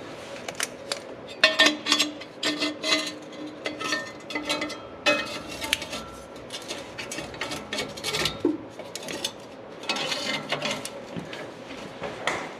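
Hand tools and metal exhaust hardware clinking and clanking as the axle-back muffler is fitted: irregular sharp metal clicks and knocks, some ringing briefly.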